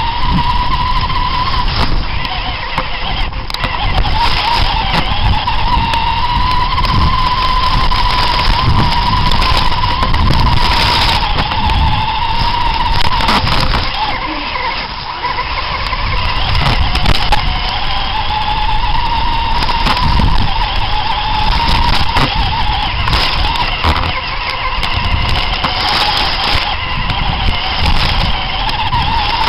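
Radio-controlled monster trucks running: a steady motor whine that slowly rises and falls in pitch with the throttle, over a rough rumble and scattered knocks and clatter from the trucks.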